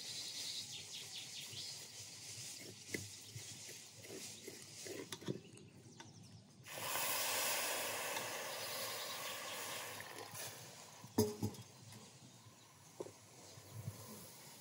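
Hot water poured from a stainless kettle into an aluminium pot, a steady splashing pour that starts about halfway through and lasts about four seconds. Before it, birds chirp faintly and a metal spoon clicks against the pot; a single metal clank follows the pour.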